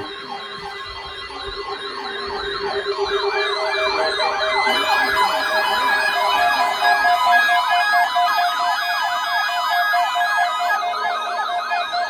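Several electronic sirens yelping at once in fast rising-and-falling sweeps, about four a second, growing a little louder over the first few seconds. This is an attention sound broadcast on NOAA Weather Radio as part of the weekly warning-device test.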